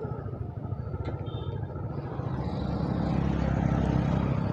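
Sport motorcycle engine running at low road speed, a steady low hum that grows louder through the second half.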